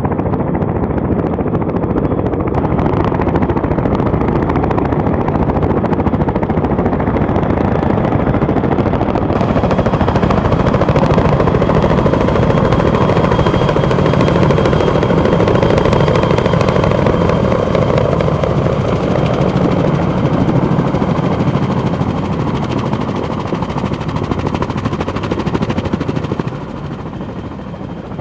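Boeing Vertol CH-46 Sea Knight tandem-rotor helicopters flying low, the rapid chop of their rotor blades growing loudest as one passes close overhead about halfway through, with a thin whine over it, then easing off near the end.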